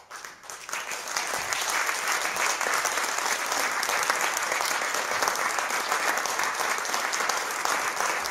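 Audience applauding, starting with a few scattered claps and building within about a second into steady applause.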